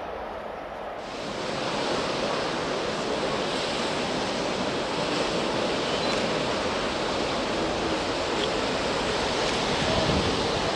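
Sea surf breaking on the beach, a steady rushing wash of waves that starts about a second in.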